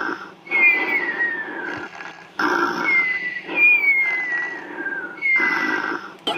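Snoring in a regular rhythm, about three breaths, each with a high whistle that slides downward in pitch.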